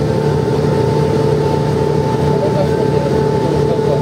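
Mercedes-Benz O405N city bus heard from inside the passenger cabin while under way: its Mercedes OM447h diesel engine and ZF 5HP-500 five-speed automatic gearbox running steadily, a low drone with a steady high whine over it.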